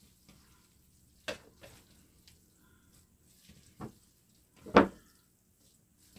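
Chopsticks mixing cold noodles in a ceramic bowl: soft wet stirring with three sharp clicks and knocks of chopsticks against the bowl, the loudest about three-quarters of the way through.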